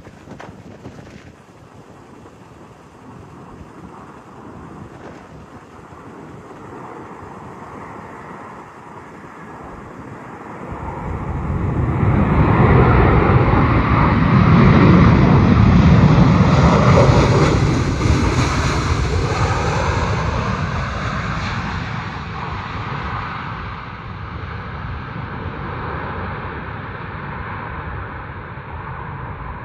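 Four-engined Airbus A380 jet airliner landing: the engines' rumble and roar swell from about ten seconds in, are loudest for several seconds, then ease to a steadier, lower rumble. Wind buffets the microphone throughout.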